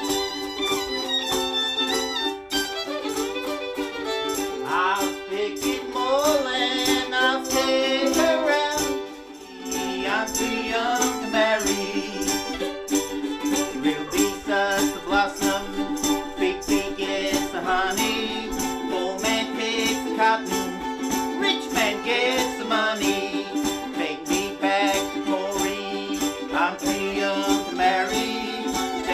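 Bush band playing a lively country tune: bowed fiddle over strummed ukuleles, with a harmonica. The music dips briefly about nine seconds in, then carries on.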